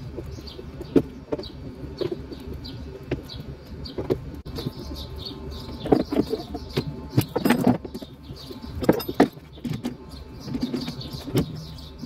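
Screwdriver work on a golf cart's pedal mounting: irregular clicks and knocks of the tool on screws and metal, busiest in the second half. Small birds chirp again and again in the background over a steady low hum.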